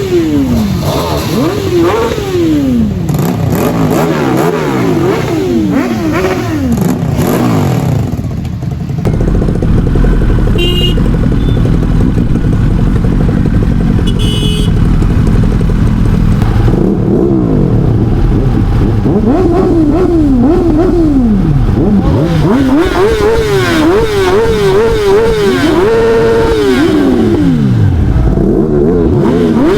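Motorcycle engines revving, their pitch rising and falling again and again, with quick zigzag blips of the throttle in the second half.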